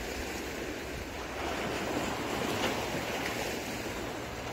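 Small sea waves washing over and draining off breakwater rocks, a steady wash that swells a little in the middle, with wind buffeting the microphone.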